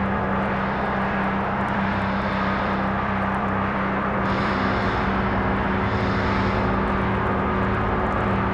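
A steady, rumbling, engine-like drone over a constant low hum, with a higher hiss that swells in and out a few times.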